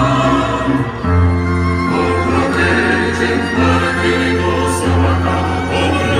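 Slow choral music: voices singing long held notes that change about once a second.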